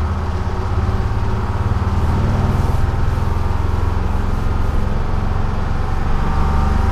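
1948 GMC Silversides bus's Detroit Diesel 6-71 two-stroke diesel engine running while the bus is driven, heard from the driver's seat. Its pitch rises a little about two seconds in and drops again near the end.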